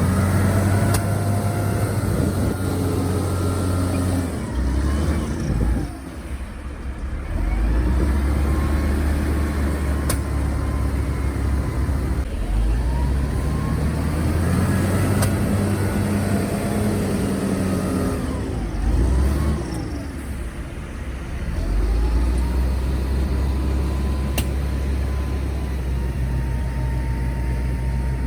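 Heavy diesel engine of earth-moving machinery working under load, its pitch rising and falling as it revs up and eases off several times. It drops off briefly about six seconds in and again around twenty seconds.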